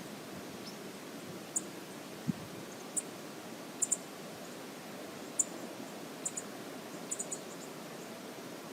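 Steady rush of river water, with scattered short, high-pitched ticks about a dozen times.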